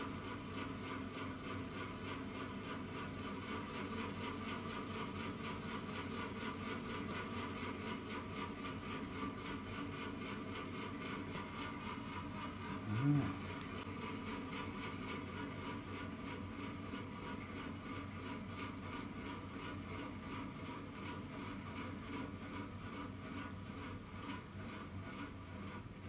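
Steady whirring machine hum, like a small motor or fan running. About halfway through comes one brief, low, pitched sound, the loudest moment.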